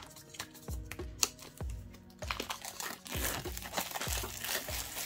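Clear plastic wrap crinkling and crackling as it is torn and peeled off a hard plastic tool case, densest from about two seconds in. Background music with a steady beat runs underneath.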